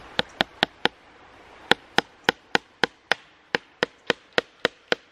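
Claw hammer driving a fence staple over welded wire into a wooden fence post, each blow a sharp ringing strike. Four quick blows, a short pause about a second in, then a steady run of about three to four blows a second.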